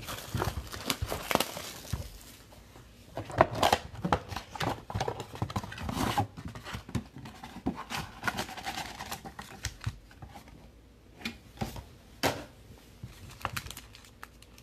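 A plastic-wrapped football card pack being torn open, with irregular crinkling of the wrapper and clicks as it is handled.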